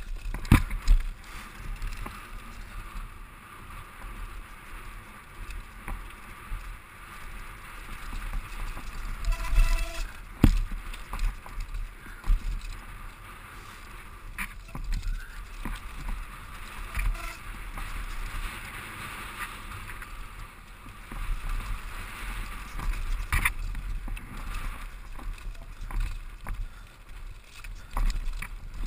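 Mountain bike riding a rough downhill trail: tyres rolling and skidding over dirt and rock with steady rattling, several sharp knocks as the bike hits rocks and wooden features, and a constant wind rumble on the microphone.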